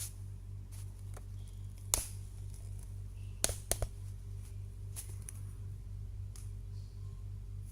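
Scattered light clicks and taps, like small objects being handled, with a sharp one about two seconds in and a quick run of three around the middle, over a steady low hum.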